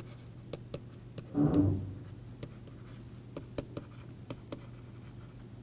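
A pen stylus clicking and scraping on a tablet screen during handwriting, as irregular small ticks. A brief hummed "mm" from the writer comes about one and a half seconds in, over a steady low hum.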